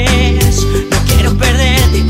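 Instrumental passage of a pop song: a steady beat over heavy bass, with a wavering melody line on top.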